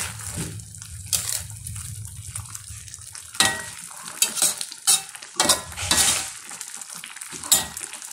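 Metal spatula scraping and clinking against a metal wok in irregular strokes as baby bok choy in oyster sauce is stirred, over a steady sizzle from the pan.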